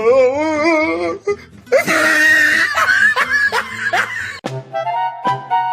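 Laughter and a voice wavering in pitch, then a music track with held notes starting about four and a half seconds in.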